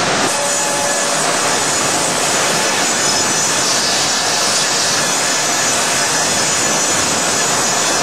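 Steam-powered sawmill machinery running: a loud, steady, unbroken din with a faint sawing character.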